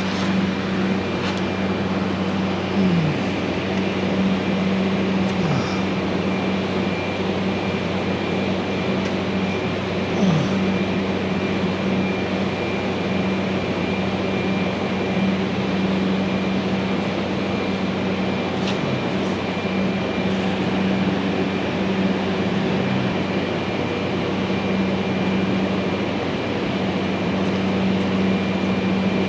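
Steady electric machine hum with a thin high whine over it, unchanging throughout, with a few faint clicks.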